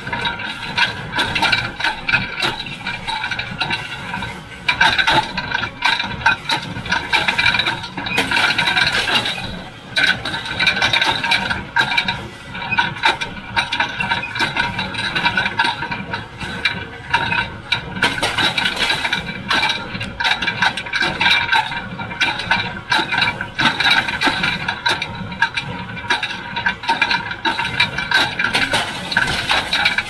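John Deere 348 square baler with its #42 pan kicker (ejector) running while baling: a steady mechanical clatter and rattle with rapid irregular knocks, over a tractor engine.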